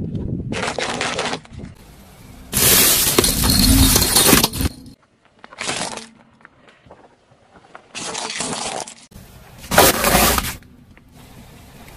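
Objects crunching, cracking and breaking as they are crushed under a car's tyre, heard as five separate bursts that start and stop abruptly. The longest and loudest comes about three seconds in.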